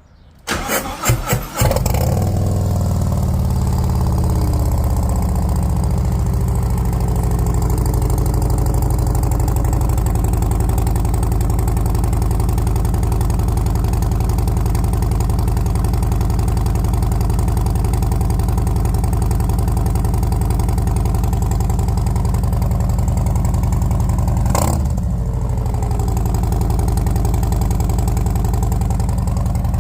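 Harley-Davidson Road Glide ST's V-twin with an aftermarket exhaust, cranked and catching about a second in, then settling from a fast idle into a steady idle. A short throttle blip about 25 seconds in.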